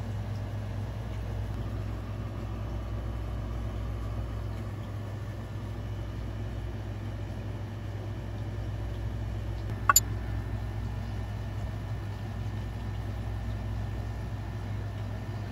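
Steady low mechanical hum, with one sharp click about ten seconds in.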